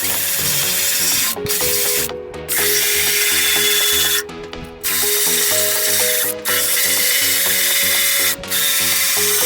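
A handheld power tool abrading rusty car-body steel during clean-up, running in spells with several brief breaks, over background music.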